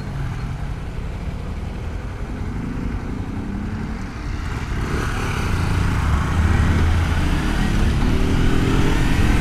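Kawasaki Versys-X 300's parallel-twin engine running under way, heard through a helmet-mounted microphone with the visor closed, over road and wind noise. It gets louder about halfway through, and the revs rise near the end as it accelerates.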